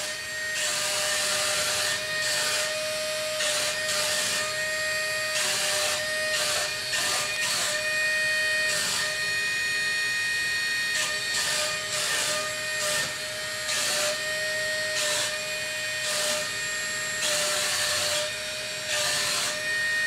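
SZJJX wall-climbing RC car's suction fan running with a steady high whine and hiss, holding it to the wall, while its small drive motors buzz in repeated short spurts as it is steered about.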